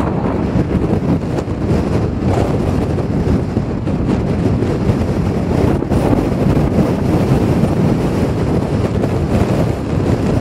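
Strong storm wind buffeting the microphone, a loud, steady rush of noise.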